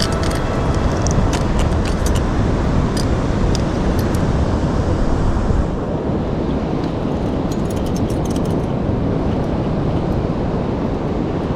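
Steady rushing of wind on the microphone mixed with surf at the shore, with scattered faint ticks in the first half; the noise drops a little just past halfway.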